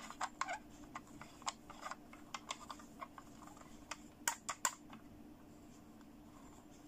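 Hard plastic clicks and taps as hands handle and turn a pink plastic toy camera: a quick irregular run of sharp clicks, the three loudest a little past four seconds in, then only a few faint taps, over a faint steady hum.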